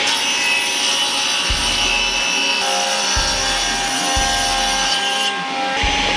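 Table saw blade ripping through solid wood boards: a steady tone from the spinning blade over the hiss of the cut, with a few brief low thumps.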